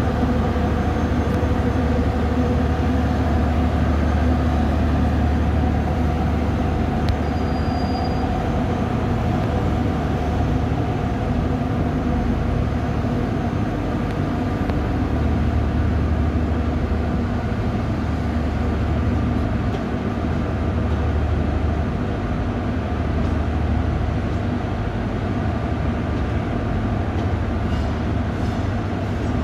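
A Rajdhani Express's LHB passenger coaches rolling past behind an electric locomotive: a steady low rumble of wheels running over the rails.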